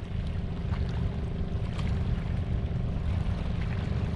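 Outdoor seaside ambience on a rock breakwater: a steady low rumble with a faint, even hum over it, and a few faint ticks.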